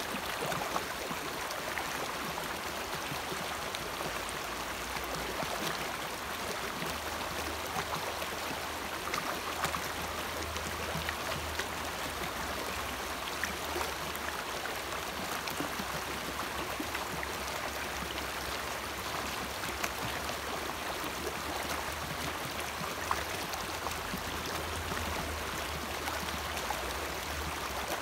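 Shallow rocky creek running steadily over stones and riffles, a constant rushing babble of water.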